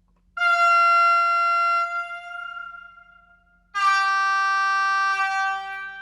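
ÖBB class 2016 Hercules diesel locomotive's signal horn, reproduced by an ESU LokSound 5 sound decoder through a model locomotive's speaker. A higher-pitched blast of about a second and a half comes first, then about two seconds later a lower-pitched blast of similar length; each dies away with a short echo.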